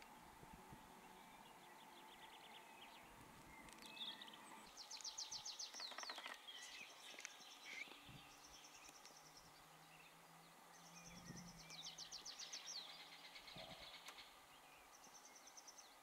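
Faint songbirds singing: fast high trills repeated several times, with scattered chirps between them. A faint low hum runs through the middle.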